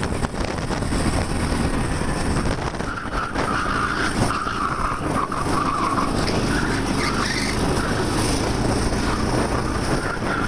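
A 13 hp kart's engine runs hard through a sequence of corners, heard from the driver's seat. Tyre scrub and squeal rise over it from about three to six seconds in.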